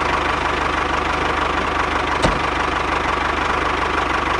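Engine running steadily at idle, an even, fast low putter with a faint steady tone over it; a single short click a little past halfway.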